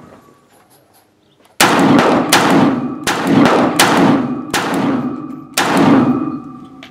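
Century Arms AK pistol in 7.62×39 fired semi-automatically from a machine rest by remote trigger: a string of shots roughly three-quarters of a second apart, starting about a second and a half in, each ringing out before the next.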